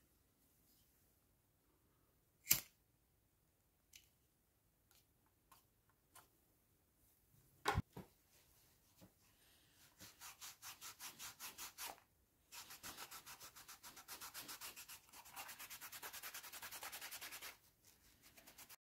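A few sharp isolated clicks, then a cloth rubbed briskly back and forth over a stitched leather knife sheath, about five strokes a second with a short pause partway through: buffing the finished sheath.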